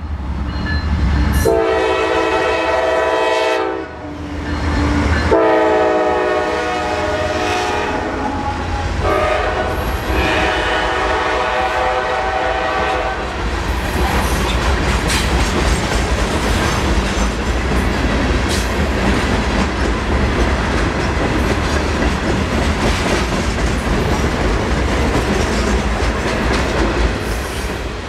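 Norfolk Southern Dash 9 diesel locomotive passing and sounding its Nathan Airchime K5LA horn in the long, long, short, long grade-crossing pattern. Then a string of loaded stone hopper cars rolls by with a steady rumble and wheel clatter.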